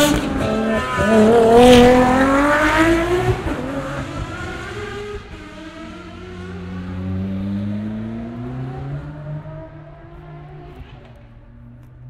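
Ferrari race car engine at full throttle, revs climbing through the gears with a quick upshift about half a second in. It then fades away into the distance, rising once more faintly midway.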